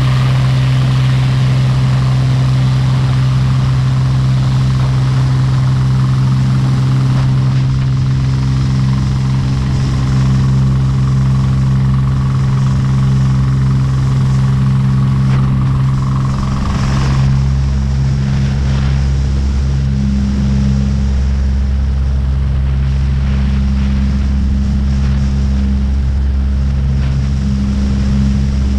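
Small aircraft engine running steadily at high power, a loud drone made of a few strong low tones. About seventeen seconds in, a higher whine drops away and the deepest part of the drone grows stronger.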